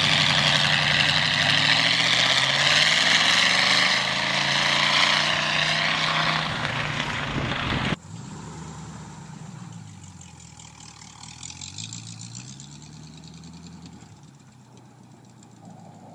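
Engine of a V8-swapped tractor running loud, its pitch shifting. It cuts off abruptly about halfway through, giving way to another V8 tractor engine, much quieter, revving up and back down a few times.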